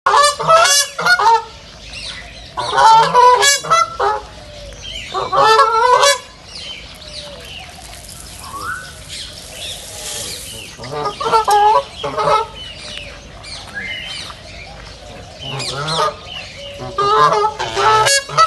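Ducks quacking in loud runs of several quick quacks, about six bouts, with fainter calls from other birds in between.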